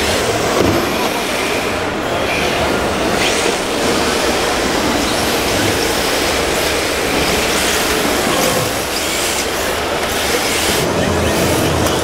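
1/10-scale electric RC drift cars sliding on a smooth indoor floor: a steady scrubbing hiss from their hard plastic drift tyres, with motor whine that rises and falls in pitch as the throttle changes.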